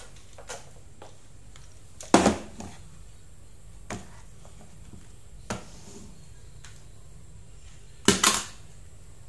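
Plastic toy trucks being knocked and set down on a table: scattered sharp clacks, the loudest two about two seconds in and near the end.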